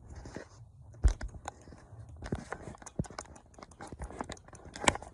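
A cat chewing something crunchy: a run of irregular crisp crunches and clicks, with louder ones about a second in and near the end.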